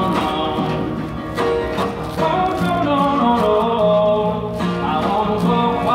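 Street busker singing and playing guitar.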